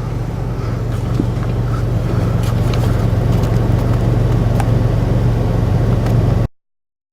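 A 4x4 vehicle's engine running with a steady low hum and a few faint clicks, a little louder from about a second in. The sound cuts off abruptly near the end.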